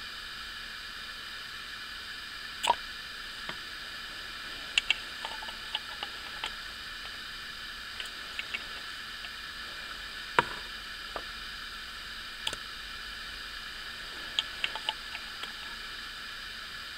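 Large syringe being worked in a power steering fluid reservoir: scattered light clicks and knocks of the syringe's tube and plunger, the sharpest about two and a half seconds in and again about ten seconds in, over a steady hiss.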